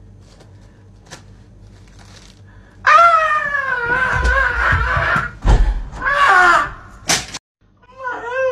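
A loud, drawn-out scream starting about three seconds in and lasting a couple of seconds, with low thumps under it. A second, shorter cry follows, then a sharp crash and an abrupt cut. Wavering whimpering cries begin near the end.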